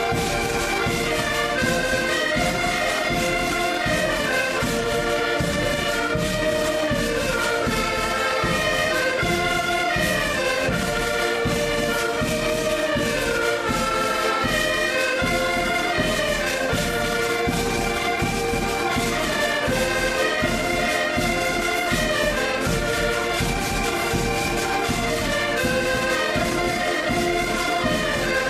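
Several diatonic button accordions playing a lively folk dance tune together, with a steady low beat underneath.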